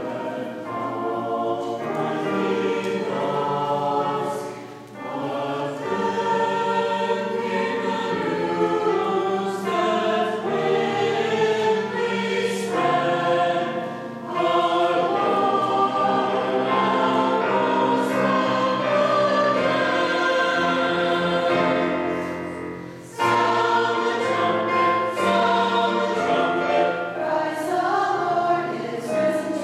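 Choir and congregation singing a hymn together, with short pauses between phrases.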